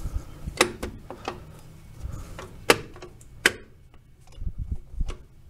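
Metal clicks and clanks of rear drum brake shoes and their springs and hardware being shifted by hand on the backing plate while they are lined up: about six sharp clicks, the loudest two near the middle, with soft knocks near the end.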